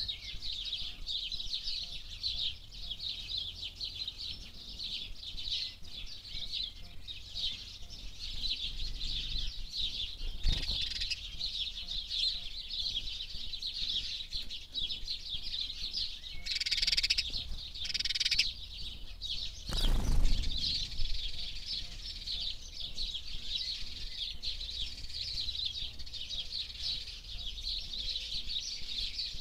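Dense, continuous high-pitched bird chirping. A sharp knock about a third of the way in, and a louder brief rush of noise about two-thirds through.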